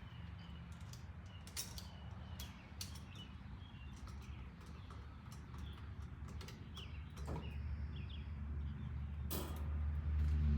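Scattered light clicks, ticks and scrapes of hand work as a wire is bent around an outlet's terminal screw, with a few faint high chirps. Under them is a low rumble that swells over the last few seconds.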